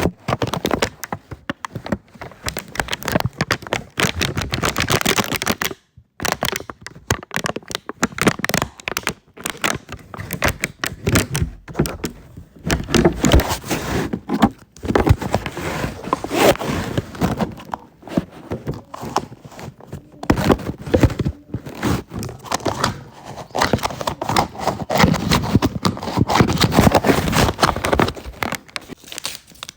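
Green slime being unpacked and handled: plastic packaging crinkling and tearing with a dense run of small irregular crackles, clicks and squelches, pausing briefly twice.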